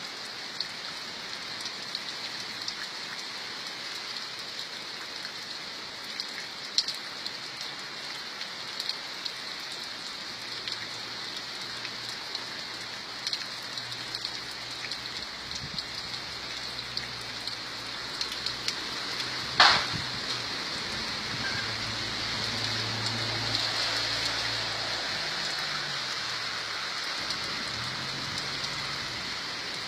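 Steady rain falling, with many small drop taps and one sharp, louder tap about two-thirds of the way through. A faint low hum comes and goes in the second half.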